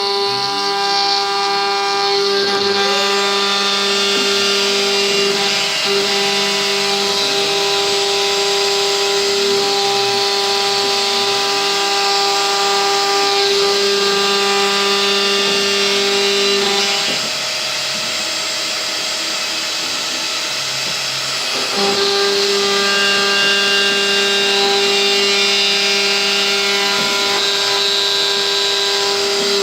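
CNC router spindle running and cutting into a wooden Stratocaster guitar body, a steady whine with overtones. It drops to a quieter, rougher sound for about four seconds after the middle, then resumes.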